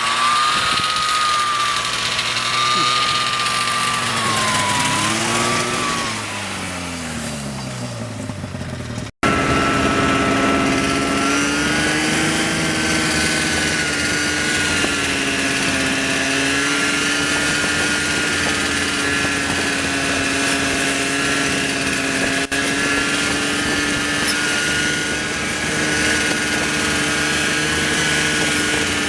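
Snowmobile engine running under way. Its note sags and falls about five to nine seconds in as it slows, then the audio drops out for an instant. After that the engine runs on at a fairly steady pitch with small rises and dips.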